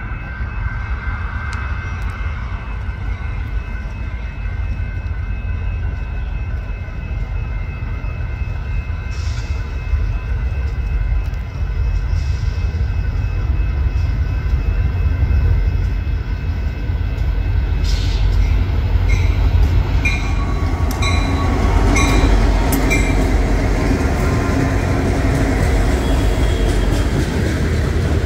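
Union Pacific diesel freight train approaching with a steady low rumble, growing louder as the locomotive nears and passes. In the last third, loaded hopper cars roll by with evenly spaced clicks from the wheels.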